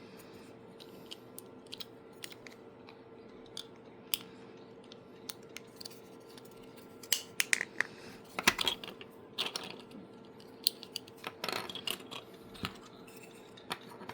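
Irregular plastic clicks and short clattering snaps from a 3D-printed clicker being worked by hand, sparse at first and busiest from about halfway through, over a faint steady hum.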